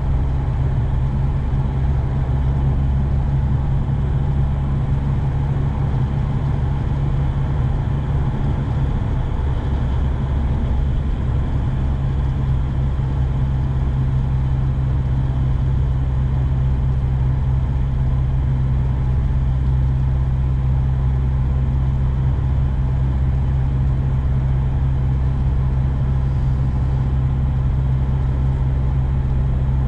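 Engine drone and road noise inside the cabin of a 1992 Volvo 240 with a 2.3-litre B230FK turbocharged four-cylinder, cruising at a steady speed. The low engine hum stays even throughout, with no revving.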